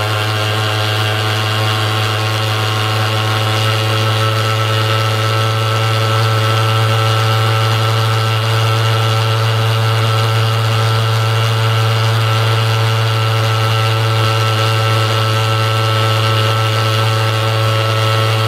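IGEBA TF35 pulse-jet thermal fogger running steadily with a loud, deep, even buzz while its fuel dosage nozzle is being set. It gets slightly louder a few seconds in.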